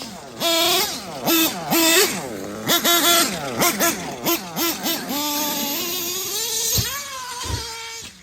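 Traxxas X-Maxx RC truck's electric motor whining, revved in quick throttle bursts so the pitch rises and drops again and again. A couple of dull thumps come near the end.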